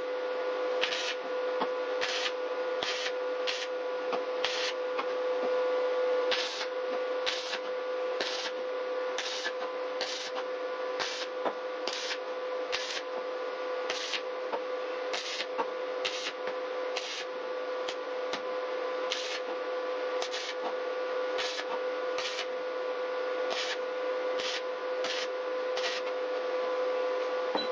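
Wire-feed (MIG) welder arc crackling and spitting steadily as a steel body reinforcement is welded in, over a steady hum, with a brighter crackle about once a second.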